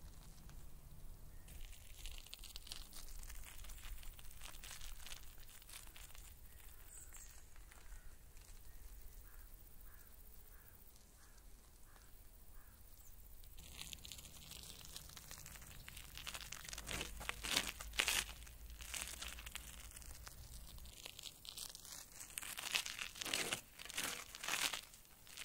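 Wind buffeting the camera's microphone: a crackling rustle in uneven gusts, quieter in the first half and louder and rougher from about halfway through.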